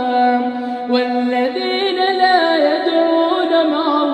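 A man chanting Quranic verses in melodic tajweed style, drawing the syllables out into long held notes that bend and waver in pitch, without a break.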